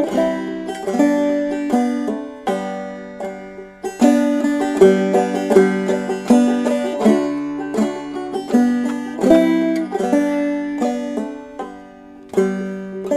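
Open-back old-time banjo with a cherry body, an Indian rosewood fretboard and a large-hole spillway bridge, played solo: a continuous run of plucked notes. It goes briefly quieter about twelve seconds in.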